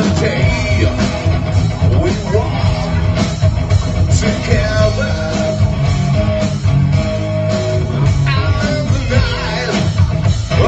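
Rock band playing live: electric guitar, bass and a drum kit beating steadily, with a male voice singing over them.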